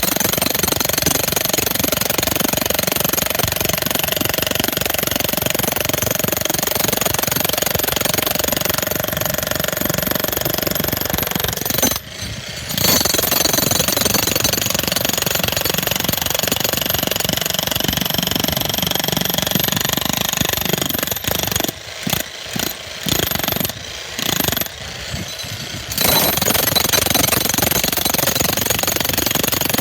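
Bauer 35-pound electric jackhammer hammering steadily into a concrete pad, breaking it up. It stops for a moment about twelve seconds in, then near two-thirds of the way through it runs in several short bursts with brief stops before running steadily again.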